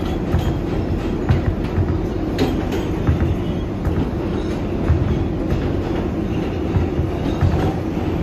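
R188 subway train running between stations: a steady low rumble and hum, with irregular clacks from the wheels on the track.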